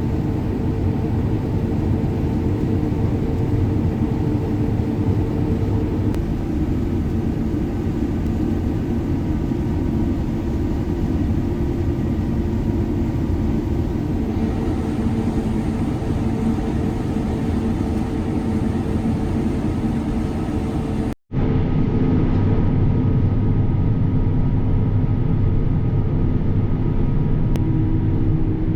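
Combine harvester running steadily under load while harvesting wheat, a constant engine hum with a low rumble. The sound cuts out for an instant about two-thirds of the way through and comes straight back much the same.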